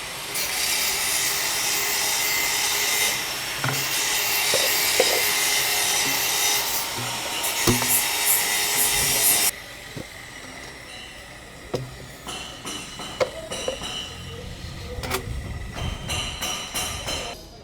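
A saw cutting through a short piece of drainage pipe for about nine and a half seconds, then stopping suddenly. Light knocks and handling of the pipe follow.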